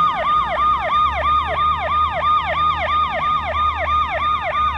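Siren in a fast yelp: a pitched wail that sweeps up and falls back about four times a second, with no change in rate.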